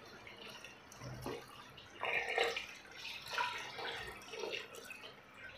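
Water poured from a plastic jug into a pressure-cooker pot, splashing onto meat and spices. It comes in faint, uneven spurts that start about a second in.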